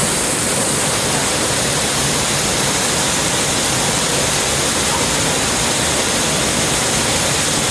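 Steady rush of falling water from a waterfall and creek, an even unbroken roar of water.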